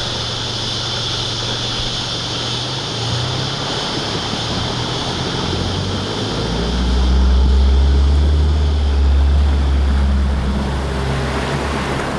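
Isuzu 4WD wading through a flooded river: its engine running under load with water rushing and sloshing around the wheels. The engine's low rumble grows much louder about halfway through as the vehicle nears and drives past close by.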